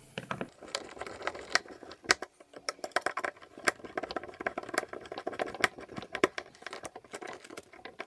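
Hand screwdriver driving small screws into the plastic button housings of a Nissan 350Z steering wheel: a run of irregular small clicks, ticks and scrapes, some sharper than others.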